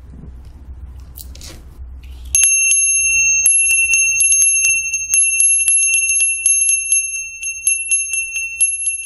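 A steady, high-pitched bell-like ringing tone with quick irregular ticks over it. It starts suddenly about two and a half seconds in and cuts off just before the end, after a low hum.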